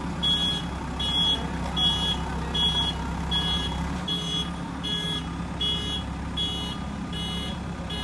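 JCB backhoe loader's diesel engine running steadily under an evenly repeating high-pitched reversing alarm, about one beep every three-quarters of a second.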